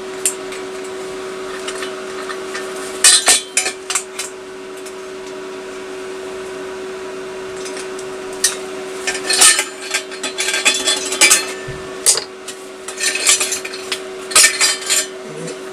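Metallic clinks and taps of steel exhaust pipe parts being handled and knocked together, a few about three seconds in and then in busy clusters from about eight seconds on, over a steady machine hum.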